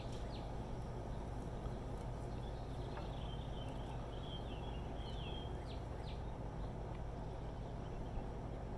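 Backyard ambience: small birds chirping, with a cluster of short high calls and a brief warble in the middle, over a steady low background hum.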